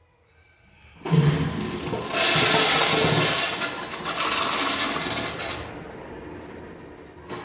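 Gerber Ultra Flush pressure-assist toilet flushing: a sudden loud rush of water about a second in, strongest for three or four seconds, then dropping to a quieter hiss as the tank refills. A short click near the end.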